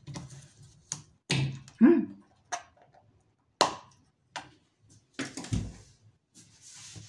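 A carton of oat milk being handled and opened at the kitchen worktop: scattered clicks and knocks, a short squeak about two seconds in, and a heavier knock about five and a half seconds in as the full carton is set down on the counter.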